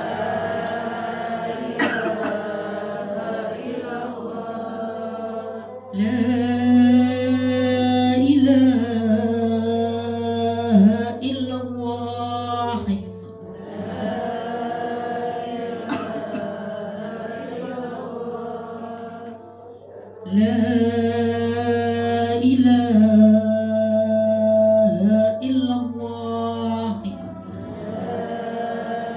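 A woman chanting an Arabic tahlil litany into a microphone, amplified through a loudspeaker, in long melodic phrases. The chanting grows louder in two long stretches, about six seconds in and again about twenty seconds in.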